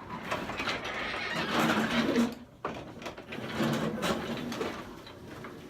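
Sectional garage door rolling along its tracks by hand, on freshly replaced torsion springs, in two long runs. There is a little binding at the rollers, which the owner thinks need lubricating.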